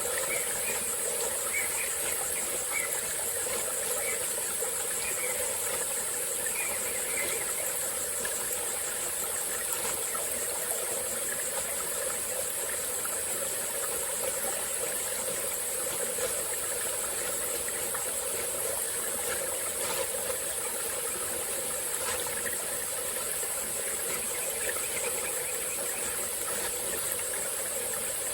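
A small forest stream flowing steadily, under a constant high-pitched chorus of insects such as crickets. A few faint short chirps come in over the first several seconds.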